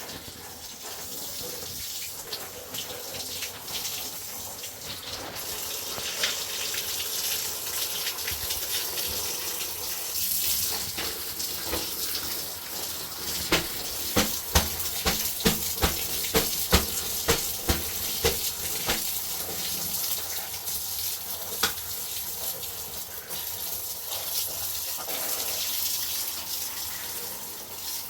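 Water running or splashing steadily, with a quick series of about ten sharp knocks midway through.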